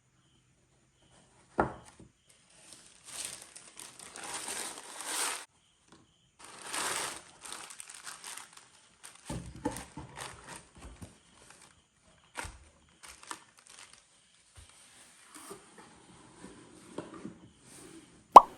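Packaging wrap crinkling and rustling in bursts as it is handled during a shoe unboxing, with a sharp knock about a second and a half in and a louder one just before the end.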